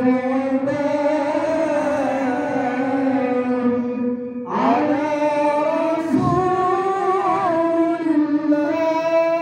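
Male qari reciting the Qur'an (tilawah) in a high, melodious voice, holding long ornamented notes. One phrase ends about four and a half seconds in, and the next begins straight away, pitched a little higher.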